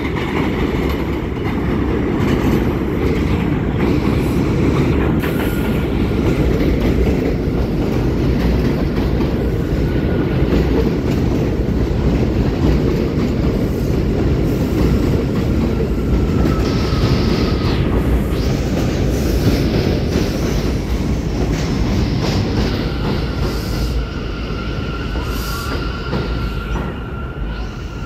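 New York City Subway train running through an elevated station, its wheels rumbling steadily on the rails. A thin wheel squeal comes and goes, and is held longest near the end.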